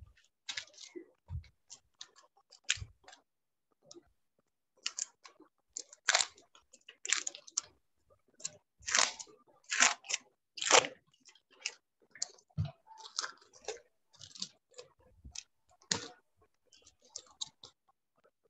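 Irregular soft clicks, scratches and crackles with a few low thumps among them, broken by short silent gaps, picked up through a video-call microphone.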